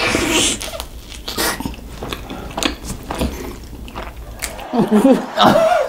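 A crisp bite into a piece of Chicago-style pizza crust close to the microphone, then crunchy chewing with a string of short sharp crunches. A voice sounds near the end.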